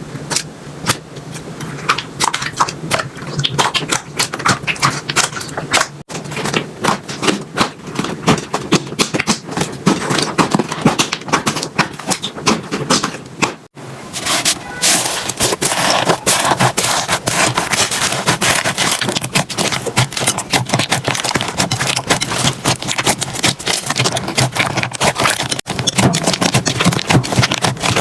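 Slime being squeezed, pressed and poked by hand, giving a dense run of sticky clicks, pops and crackles. The sound breaks off briefly three times and starts again.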